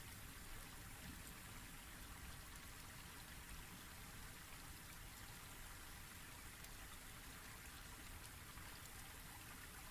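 Near silence: a faint, steady hiss of room tone between read-aloud lines.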